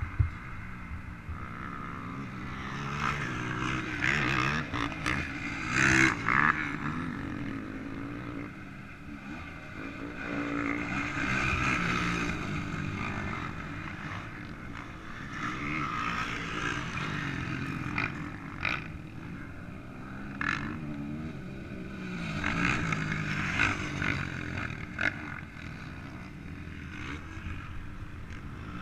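Off-road racing engines on a motocross track, revving up and falling off in repeated waves as the throttle opens and closes, with a few sharp knocks along the way.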